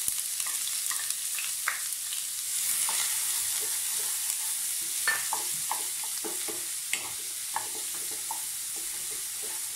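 Chopped onions sizzling in hot coconut oil in a nonstick kadai, with a steady hiss, while a wooden spatula stirs them, scraping and tapping against the pan in short irregular clicks.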